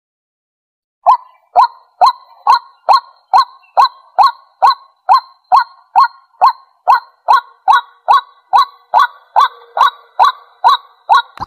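White-breasted waterhen calling a long, even run of short repeated 'kwak' notes, about two a second, starting about a second in. It is a lure recording used to draw territorial waterhens in.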